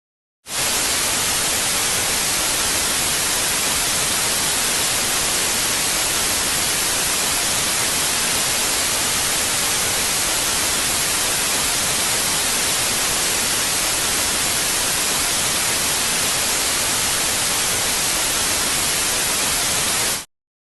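Steady static hiss, like an off-air TV or radio, that cuts in sharply about half a second in and cuts off sharply just before the end.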